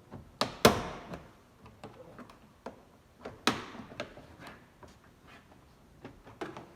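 Plastic push clips of a truck's inner door panel popping loose as the panel is pried off. There are two sharp, loud snaps, about half a second and three and a half seconds in, with smaller clicks and knocks between them.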